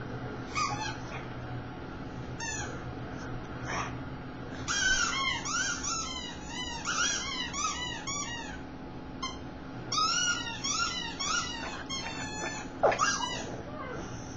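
A dog's squeaky toy squeaking in quick runs as it is squeezed, several high squeaks a second, each rising and then falling in pitch, with single squeaks before and after the runs.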